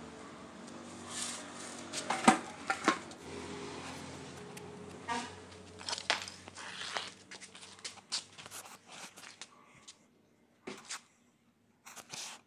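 Knocks and clanks of a car's steel exhaust pipe and silencer being handled as they are taken off. The sharpest strikes come about two to three seconds in, then lighter scattered knocks, over a low steady hum in the first half.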